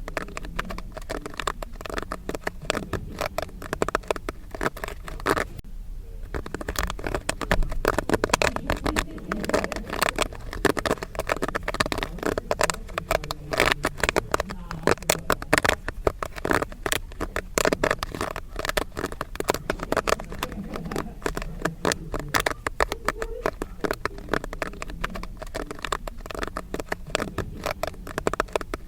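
Popcorn popping: a dense, continuous run of sharp pops and crackles, with a brief lull about five and a half seconds in.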